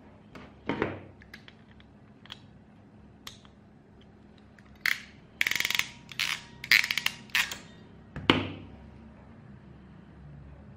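Hand crimping tool closing on an RJ45 network plug: a few light clicks, then a cluster of sharp clicks and clacks in the middle, including a quick rattle of clicks, and one last loud clack.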